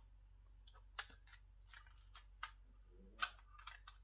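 A handful of sharp plastic clicks and taps from handling a drone's remote controller and its fold-out phone mount, the loudest a little after three seconds in.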